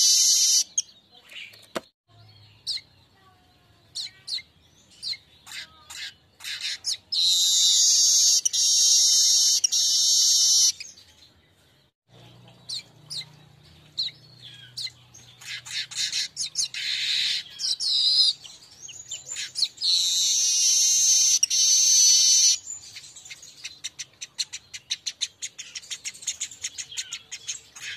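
Streaked weaver (manyar kembang) song, a lure recording: rapid dry chattering ticks broken by long wheezing, hissing buzzes of about three seconds each, the first about seven seconds in and the second about twenty seconds in, then a fast ticking run near the end.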